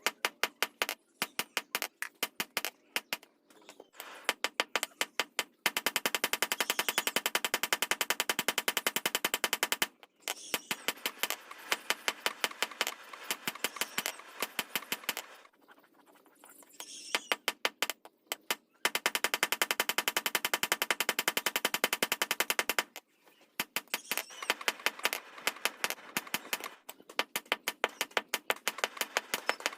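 Hammer blows on hot steel on an anvil while forging a blade: rapid runs of sharp metal-on-metal strikes with the metal ringing between blows, broken by short pauses every few seconds.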